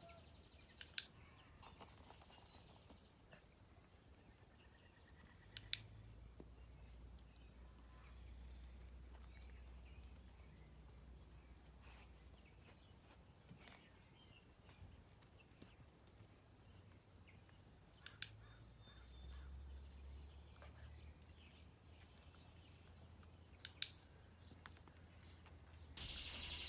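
Dog-training clicker pressed four times, several seconds apart, each press a quick double click.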